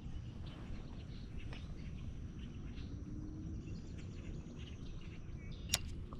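Outdoor ambience: a steady low rumble with faint bird chirps, and one sharp click near the end.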